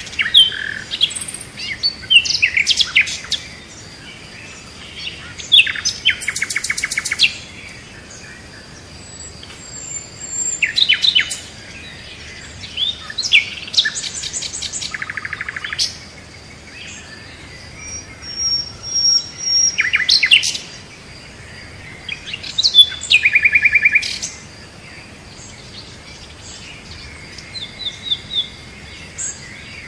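Songbirds singing: phrases of chirps and quick trills come every few seconds, with short pauses between them.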